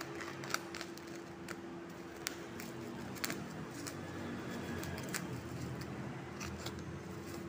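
Plastic courier mailer and packing tape being torn and crumpled open by hand: steady crinkling and rustling with scattered sharp crackles.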